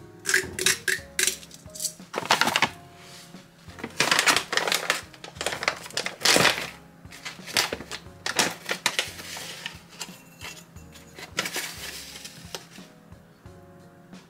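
A hand salt grinder turning with quick rasping clicks for the first couple of seconds, then a plastic powder pouch rustling and powder being scooped in a series of short swishes, over background music.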